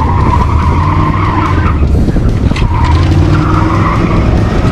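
Supercharged 5.4-litre V8 of a Ford F100 built on an F-150 Lightning chassis, running hard under load through autocross turns, with the tyres squealing in long, wavering squeals as the truck corners.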